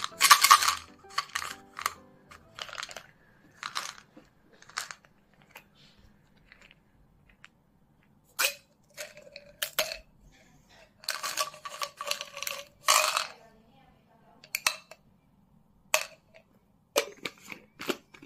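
Close handling of a plastic supplement bottle: the cap twisting off and the foil seal being peeled away, heard as scattered short scratchy rustles, clicks and faint plastic squeaks with quiet gaps between them.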